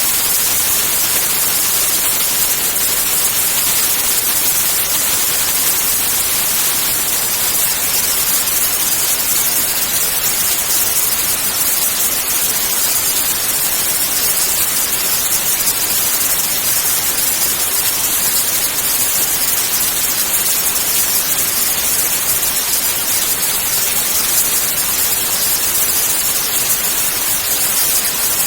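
Synthetic white noise: a steady, unchanging hiss, brightest in the high treble.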